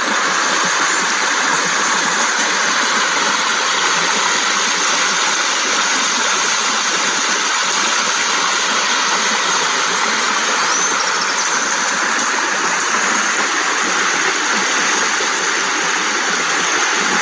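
Steady rush of a shallow river flowing over rocks, an even unbroken water noise.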